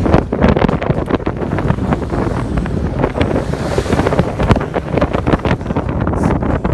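Strong wind buffeting the microphone on a sailboat under sail, in gusty irregular blasts, over the wash of waves against the hull.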